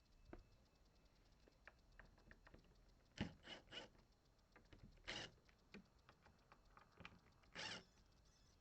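Faint small clicks and knocks of hands adjusting a door lock, with a few short louder noises: three quick ones about three seconds in, then single longer ones around five and seven and a half seconds in.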